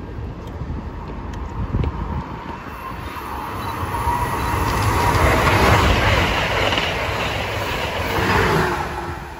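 Amtrak train hauled by a Siemens ACS-64 electric locomotive with Amfleet coaches approaching and passing at speed: a rush of steel wheels on rail that builds up, peaks after the halfway point with a second swell, and begins to fade near the end.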